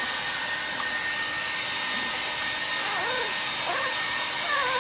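Small handheld electric blower (hair dryer type) running steadily, a constant airy rush with a faint steady whine, blow-drying puppies' wet fur after a bath.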